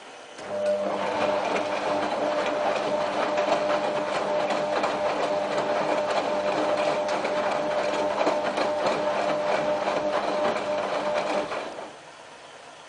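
Whirlpool AWM4066 washing machine's motor turning the drum during a wash cycle: a steady motor whine over a busy rattle. It starts about half a second in and cuts off after about eleven seconds.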